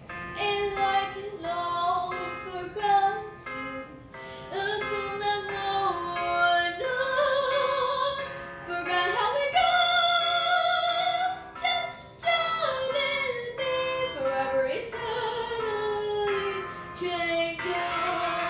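A woman singing a slow ballad melody, holding long notes with vibrato, over music.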